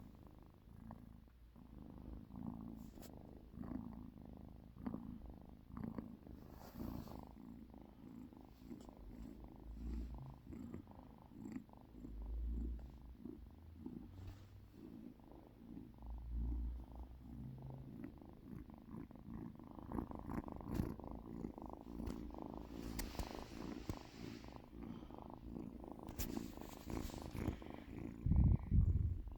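Calico Devon Rex cat purring steadily and close up, a fast rumbling flutter, with a few low thumps, the loudest near the end.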